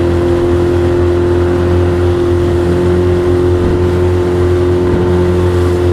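20 HP Yamaha long-shaft outboard motor running at a steady, unchanging speed under way, over a constant hiss.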